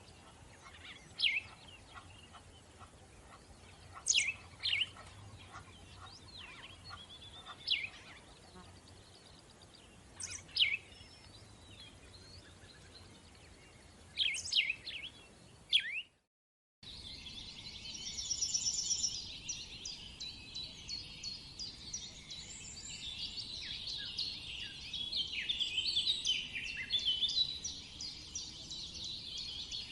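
Wild birds calling: first a bird giving short, sharp calls that sweep down in pitch, repeated every one to three seconds, then, after a brief dropout about halfway through, a dense chorus of many birds chattering together.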